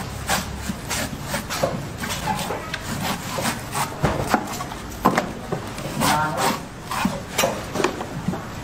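Large knife chopping and shaving the husk off a green coconut against a wooden chopping block: an irregular run of quick cuts and knocks, two or three a second, with a heavier knock about five seconds in.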